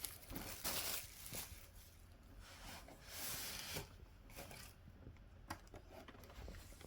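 Faint rustling of cardboard and plastic packaging being handled, in a few short stretches, with scattered light ticks and taps.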